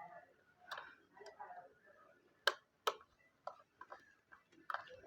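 Scattered light clicks and ticks of a screwdriver and the plastic cover being handled as the back cover of a rechargeable table fan is screwed shut, with two sharper clicks about two and a half and three seconds in.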